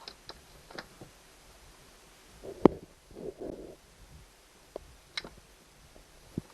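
Scattered light clicks and taps from hands handling wiring and fittings, with one sharp knock nearly three seconds in followed by a brief muffled rubbing noise.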